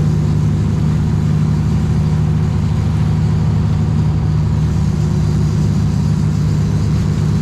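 Sport fishing boat's engines running at a steady low trolling speed, a constant low hum with no change in pitch.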